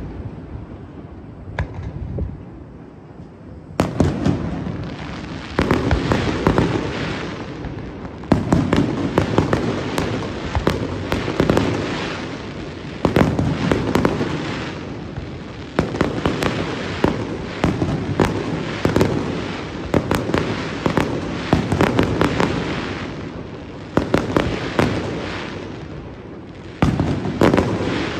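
Fireworks display: aerial shells bursting in a long series of sharp bangs, each trailing off in a rumble, with clusters of quick cracks. A few scattered bangs at first, then from about four seconds in a near-continuous barrage.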